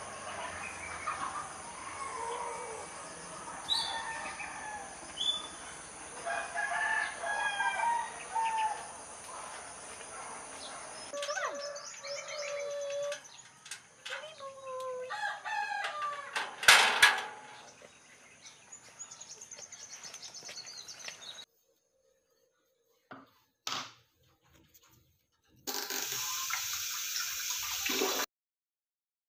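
Roosters crowing and birds calling over a thin, steady high-pitched whine. About two-thirds of the way through comes one loud, sharp knock. Then a few seconds of near silence, and a short stretch of steady hiss near the end.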